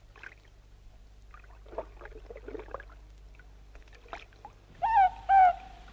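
Faint rustling, then near the end a loud two-note call of a morepork (ruru), the small New Zealand owl heard in the bush at night.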